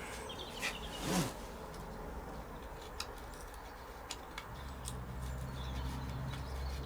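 Faint scraping and small ticks of a strip of glued balsa sheet being worked loose with a blade, with a few sharp clicks about three and four seconds in. A steady low hum comes in past the halfway point.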